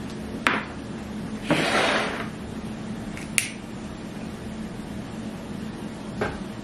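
Sharp clicks of a utility lighter being triggered to light a tea-light candle, one about half a second in and another a little past three seconds. A short rustling noise falls between them. A steady low hum runs underneath.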